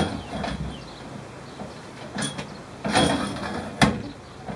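Galvanised steel tubes of a homemade towbar kayak loader knocking and scraping against each other as the T-piece is fitted into the upright post. There is a knock at the start, a scraping rattle about three seconds in, and a sharp metallic clank just before four seconds.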